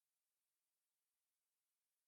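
Near silence: only a very faint steady hiss.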